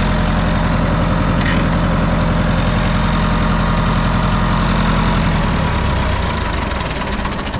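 Massey Ferguson 168 tractor's four-cylinder diesel engine running steadily under load, driving a beet chopper off the PTO. About five and a half seconds in, the engine note drops and the sound begins to ease off.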